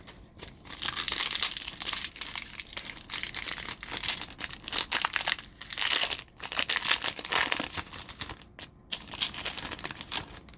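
A plastic trading-card pack wrapper being torn open and crinkled, in irregular bursts of crackling with brief pauses.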